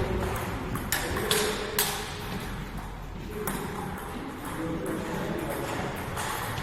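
Table tennis ball clicking off bats and the table in a short rally, a few sharp hits about half a second apart and then another a couple of seconds later.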